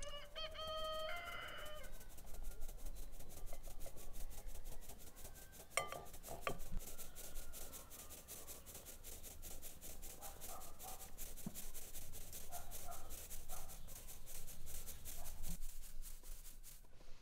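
A rooster crows once, a call of about two seconds that steps up in pitch partway through. Then comes a long run of rapid, evenly spaced clicking, with a couple of louder knocks.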